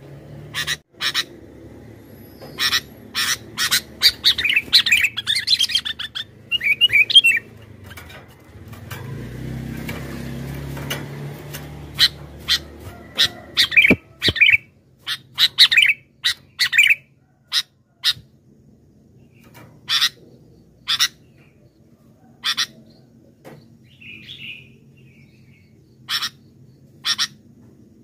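Sooty-headed bulbul calling in short, sharp chirps, some in quick runs, thickest about four to seven seconds in and again around fourteen to seventeen seconds, sparser after. A low rumble sits underneath for a few seconds near the middle.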